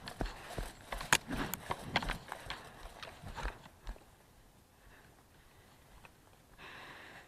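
Footsteps of a person running on the ground, about two strides a second, with knocks and clicks of carried gear, slowing and dying away about four seconds in.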